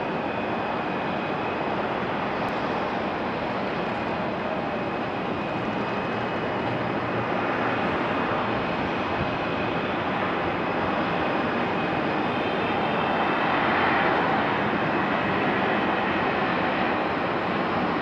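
Jet engines of a twin-engine business jet on final approach, heard as a steady rushing noise with a faint high whine. It grows louder as the jet comes closer and is loudest about three-quarters of the way through.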